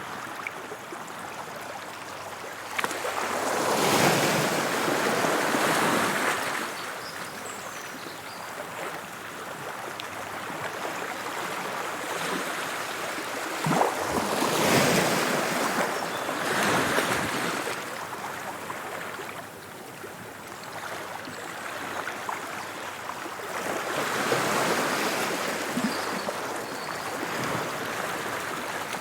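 Sea waves breaking on the shore: three big swells of surf about ten seconds apart, each rising to a crash and washing back into a steady hiss between them.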